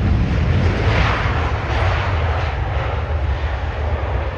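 Jet airliner passing low on its landing approach: a rushing engine roar that swells about a second in and then eases off, over a steady low rumble.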